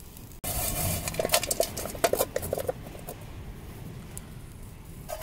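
Cooked shrimp being handled and stirred in a metal pot: a run of light clicks and rattles against the pot during the first few seconds, then fewer and quieter ones.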